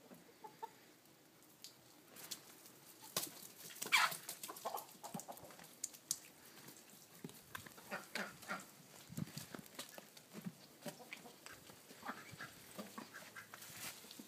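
Backyard poultry clucking and calling, with one louder call that drops in pitch about four seconds in, among many short scattered taps.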